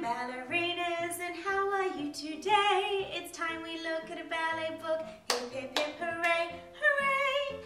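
A woman singing a melody and clapping her hands, with two sharp claps close together about five seconds in.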